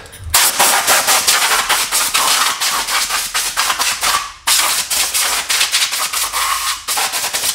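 Compressed-air blow gun blasting shop air against a plastic intake filter screen and its housing to blow the dust out, the hiss coming in rapid uneven spurts. It breaks off briefly a little over four seconds in, then starts again.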